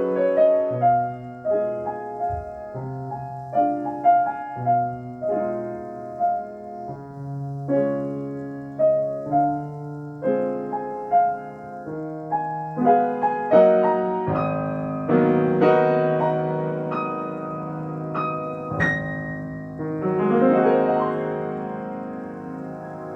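Solo piano playing a classical piece: chords and melody notes over held bass notes, growing louder toward the middle and softening near the end.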